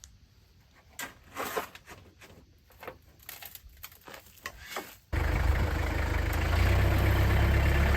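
Scattered light knocks and taps, then, about five seconds in, an engine starts up abruptly and runs loudly and steadily.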